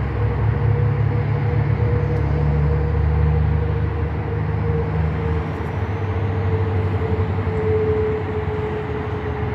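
Steady road-traffic rumble: a low engine drone with a faint held hum that drifts slightly lower in pitch.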